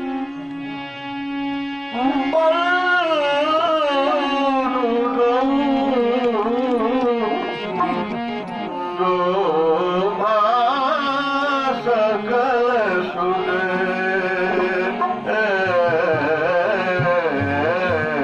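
Indian devotional song in teen taal with tabla accompaniment: a steady held note for about two seconds, then a long wordless melodic passage whose pitch bends and wavers continuously.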